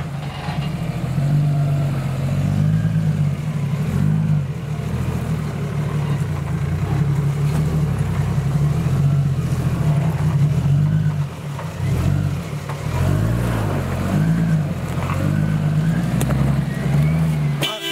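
Toyota Landcruiser 80 Series engine working at low revs as it crawls up a steep rock chute, the revs rising and falling with the throttle.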